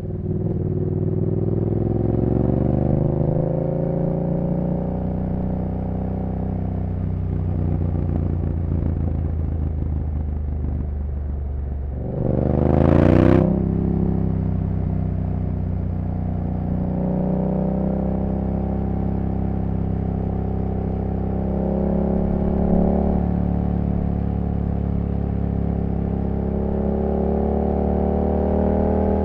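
2015 Yamaha MT-07's CP2 parallel-twin engine through a full race exhaust, riding through changing revs and gear changes. About halfway through it revs hard in one steep climb, the loudest moment, then drops back to cruising.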